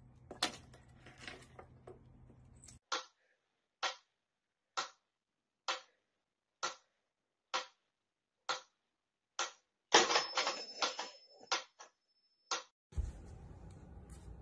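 Mechanical pyramid metronome ticking steadily, about one sharp tick a second, eight times. Near the end a louder clatter follows, with a thin high ringing tone for a couple of seconds.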